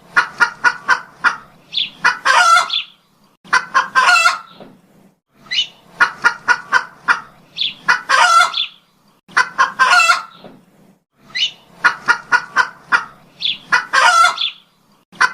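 Domestic chicken calls repeating in a regular cycle about every two seconds: a quick run of short clucks followed by a longer drawn-out call.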